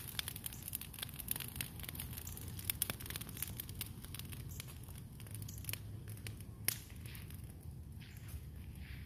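Brush pile of green leafy branches burning, crackling and popping with quick sharp snaps. The crackles are dense for the first few seconds, then thin out, with one loud pop about two-thirds of the way in.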